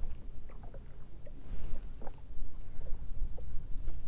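Lake water lapping and slapping in small irregular splashes against the hull of a drifting fishing boat, over a low steady rumble of wind.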